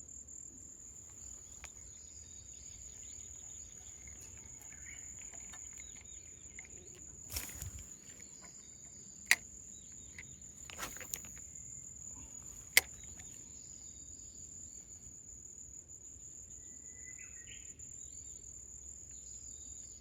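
Steady high-pitched insect trill, cricket-like, running unbroken. Around the middle come two brief swishes and two sharp clicks, the clicks being the loudest sounds.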